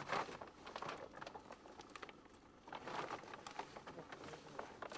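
Faint, irregular water splashing and dripping mixed with rustling as wet gear is hauled up out of the lake over the side of a small aluminium boat.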